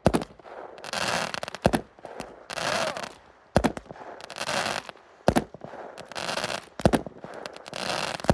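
Fireworks going off: about six sharp bangs at an even pace, one every second and a half to two seconds, each gap filled with a crackling hiss.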